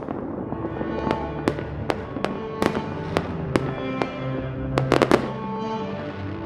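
Firework shells bursting in a run of sharp bangs roughly every half second, with a quick cluster of three about five seconds in, over music with held notes.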